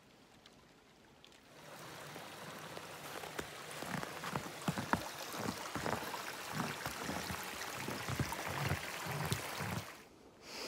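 Small forest stream running and babbling over rocks, an even rushing with many small irregular splashes. It comes in about a second and a half in and cuts off suddenly near the end.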